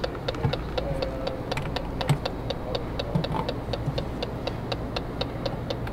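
Electronic propane leak detector (gas sniffer) ticking steadily at about five clicks a second as its probe is passed around an RV's propane cylinder and fittings; the even tick rate shows no leak.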